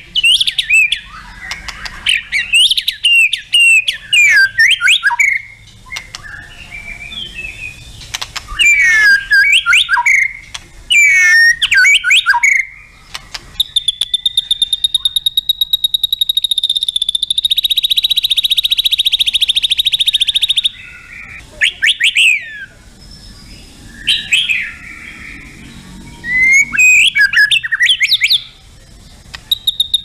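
White-rumped shama singing: a run of loud, varied whistled phrases with quick rising and falling notes. About halfway in comes a long, fast, steady rattling trill lasting some seven seconds, and then more whistled phrases.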